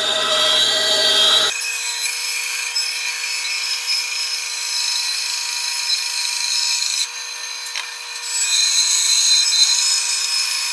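Bandsaw running and cutting a curve through a wooden blank, a steady motor whine under the hiss of the blade in the wood. The sound changes abruptly about a second and a half in, dips around seven seconds, and picks up again shortly after.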